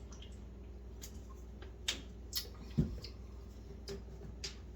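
A man eating a sauced chicken wing: scattered wet lip smacks and chewing clicks, about six in all, with one low thump near the middle, over a steady low hum.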